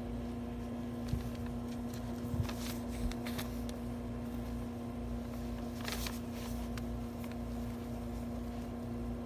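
Steady low machine hum in a small room, with a few light taps and a brief scratchy rustle about six seconds in.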